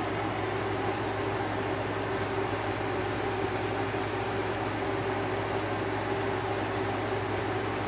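Steady room hum with a held tone, and over it faint, evenly repeated strokes about three a second, fitting a grooming brush drawn through a dog's short double coat.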